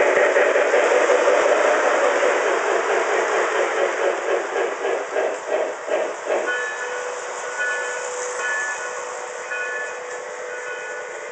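Lionel model trains running on their carpet-laid track loops, loudest in the first few seconds as one passes close, then fading. A rhythmic pulsing comes in for a couple of seconds midway, and short high tones recur over a quieter steady hum near the end.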